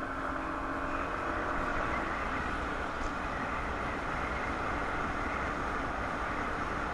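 Steady road traffic noise from vehicle engines running nearby, with a faint engine hum that fades out in the first second.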